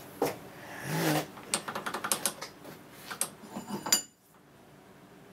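Light metallic clinks and taps from handling hand tools and a die-cast gear housing at a bench vise: a quick run of small clicks, with the sharpest clink about four seconds in.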